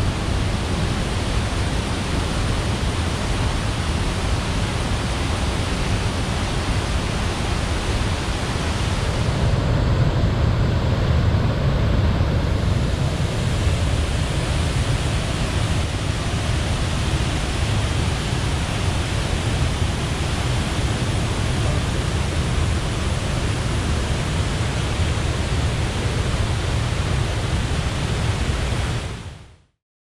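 Waterfall and rocky river rushing steadily. About ten seconds in, the hiss dulls and the low rumble grows for a few seconds, and the sound cuts off abruptly at the very end.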